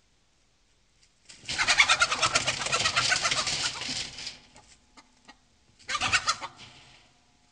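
Chicken in alarm inside a small wooden coop, squawking and beating its wings against the coop as a bobcat rears against the wire door. One long burst of flapping and squawking begins about a second in and lasts about three seconds, and a shorter burst follows near the end.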